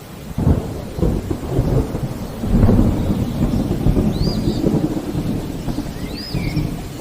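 Rolling thunder under steady rain, the rumble starting about half a second in and swelling around the middle. A bird gives two short high chirps in the second half.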